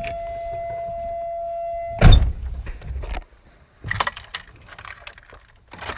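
A steady electronic warning tone sounds, then stops abruptly at a loud thump about two seconds in, followed by a few scattered clicks and rattles.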